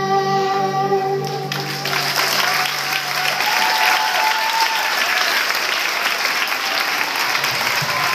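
A choir holds the final sung chord of its song, which ends about a second and a half in; then a large crowd breaks into steady applause.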